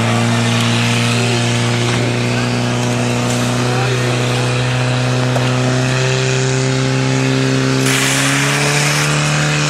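Portable fire pump's engine held at full throttle, a steady high engine note whose pitch creeps slightly higher later on, as it pumps water out through the hoses to the nozzles.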